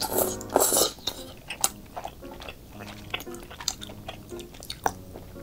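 Close-miked eating of spicy cheese tteokbokki: a loud slurp in the first second as strands are drawn into the mouth, then wet chewing with scattered sharp smacks and clicks.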